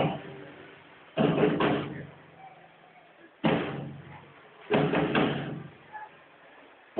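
Heavy drum strikes from a stage-show soundtrack over theatre speakers: a single hit at the start, then three loud clusters of a few rapid booming beats each, about a second or two apart, each dying away into quiet.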